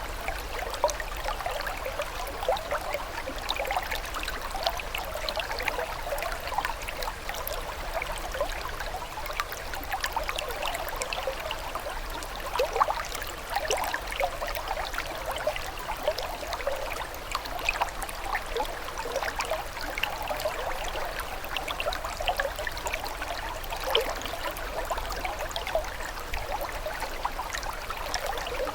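Running water trickling steadily, a continuous dense patter of small splashes and bubbles with no pauses.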